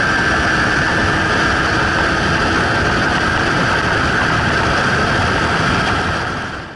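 Suzuki GSR 600's inline-four engine running as the motorcycle is ridden at speed, mixed with heavy wind rush over the tank-mounted camera. A steady high whine holds throughout, and the sound fades out quickly near the end.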